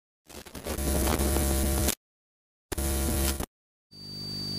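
Two bursts of buzzing, static-like noise, each switched on and cut off abruptly with dead silence between them. Then, about four seconds in, a quieter steady electrical mains hum with a thin high whine sets in.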